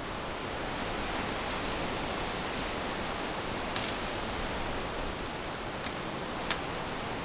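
Steady rushing hiss, with four sharp cracks in the second half as a machete cuts through scrub.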